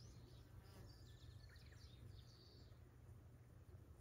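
Faint, scattered bird chirps over a steady low outdoor rumble.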